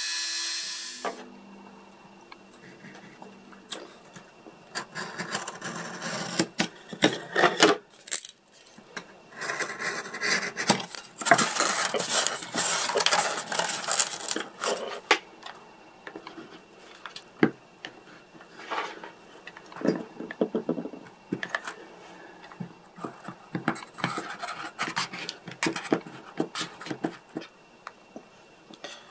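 A small handheld rotary tool's high whine cuts off about a second in. Then come irregular scraping and rubbing sounds, in clusters, of small hand tools and parts worked against a wooden board.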